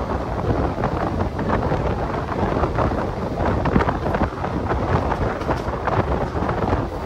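Wind buffeting the microphone over the steady rumble and rattle of a passenger train running along the track, heard from an open coach door.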